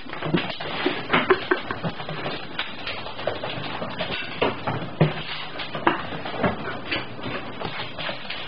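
Puppy and ferret running and playing on a hardwood floor: their claws and paws make irregular clicks, taps and thumps.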